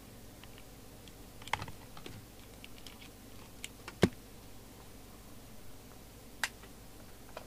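A few scattered small clicks and taps from hands handling bench test gear, the sharpest about four seconds in.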